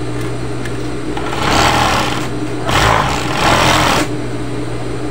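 Industrial sewing machine: the motor hums steadily, and the machine stitches in two short runs, one about a second and a half in and another just under three seconds in, each lasting about a second.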